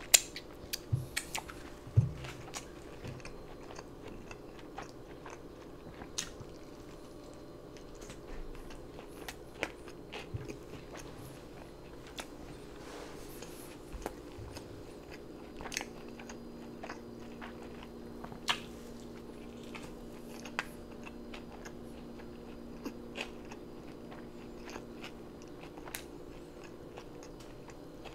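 Close-miked biting and chewing of carne asada tacos: wet mouth clicks and smacks, a quick run of them in the first few seconds, then occasional ones through the chewing.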